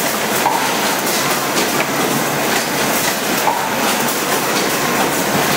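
HM-ZD6418 automatic rigid box making machine running at its box-forming station: a steady mechanical clatter of many small clicks, with a short higher tone coming back about every three seconds as the cycle repeats.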